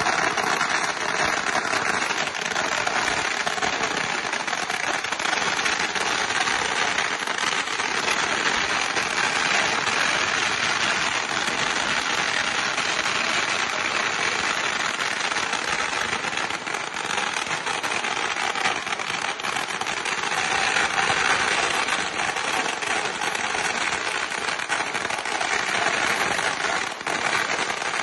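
Firecrackers going off in a dense, continuous crackle of rapid small pops.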